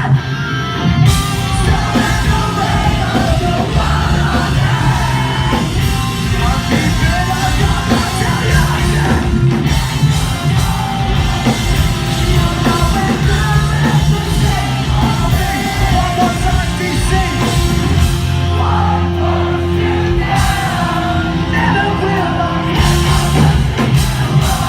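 Live rock band playing loud, with drums, distorted guitars and a singer's voice that moves between singing and yelling.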